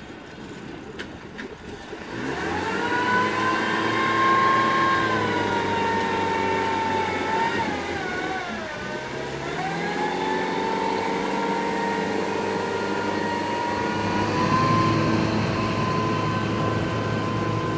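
Engine of a small motorboat coming up to a steady run about two seconds in, its pitch dipping briefly and recovering near the middle.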